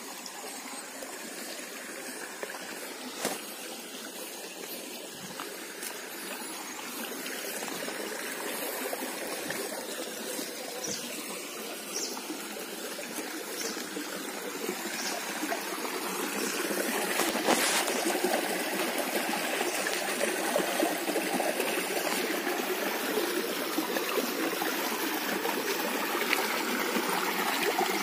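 Shallow stream trickling over rocks, growing steadily louder a little past halfway as water spilling between stones comes close.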